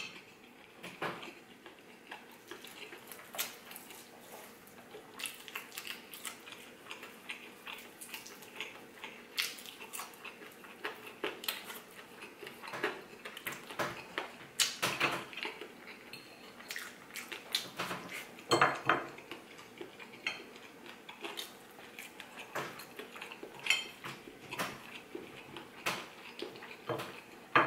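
Metal fork clinking and scraping on a ceramic plate while scooping up rice, in many short, irregular clicks, a few of them louder.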